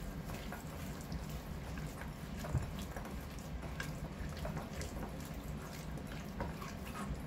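Raw pork rib pieces being mixed by hand with their marinade in a glass bowl: soft wet squelching and small irregular clicks of meat against the glass, with one louder knock about two and a half seconds in.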